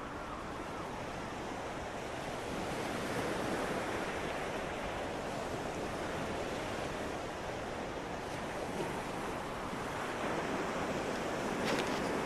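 Sea surf breaking on a sandy shore and rock breakwaters, an even rush that swells and eases, with wind buffeting the microphone.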